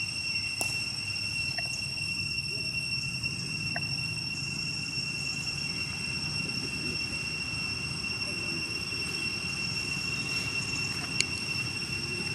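Steady high-pitched drone of insects in the forest, one unbroken tone with a fainter higher one above it, over a low outdoor rumble. A few faint ticks, and one sharp click near the end.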